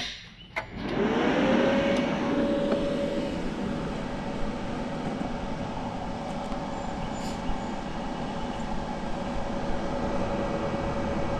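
YesWelder Firstess MP200 plasma cutter powered up: its cooling fan spins up, the hum rising in pitch over about a second, then runs at a steady hum with a constant rush of air.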